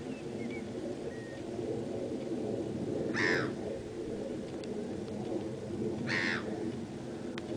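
A bird calling twice, about three seconds apart, each call short and loud, over a steady low background rumble, with a few faint small chirps near the start.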